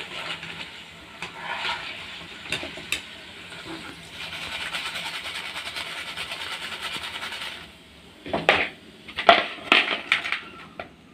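Hot oil sizzling around frying potato chips as they are scooped out with a wire skimmer, the chips fried through. The sizzling stops about three-quarters of the way in, followed by a few sharp clinks.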